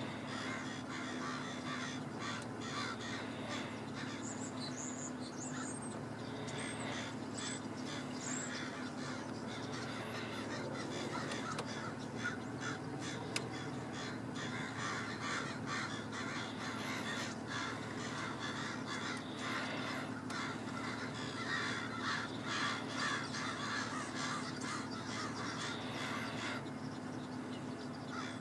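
A flock of blackbirds calling and chattering without a break, many short calls overlapping and thickest in the second half, over a steady low hum.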